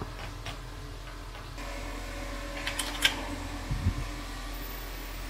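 Steady hum of a desktop computer's cooling fan running, with a few light clicks about three seconds in and soft knocks of handling just after.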